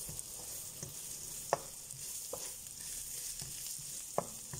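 Diced carrots, onion and garlic sizzling in oil in a hot pan while being stirred, with a steady high hiss. A utensil knocks against the pan several times, sharpest about a second and a half in and near the end.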